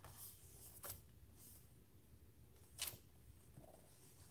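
Near silence with a few faint clicks and rustles from handling the plastic casing and small screws of an electronic device being put back together; the sharpest click comes near three seconds in.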